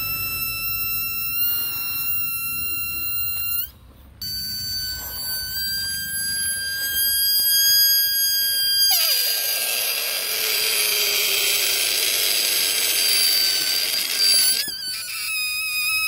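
Inflated rubber balloons squealing as air is let out through necks stretched between the fingers: a steady high whine that breaks off briefly about four seconds in and resumes a little higher, turns into a loud rushing hiss with a thin squeal through the middle, and settles back to a lower whine near the end.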